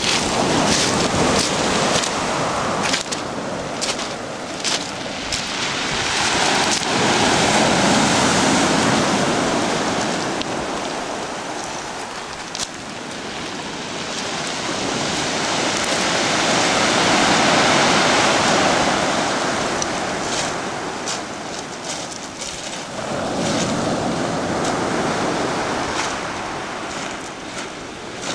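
Surf breaking and washing up a steep pebble beach, the noise swelling and fading every several seconds as each wave comes in and draws back, with wind on the microphone and scattered short ticks.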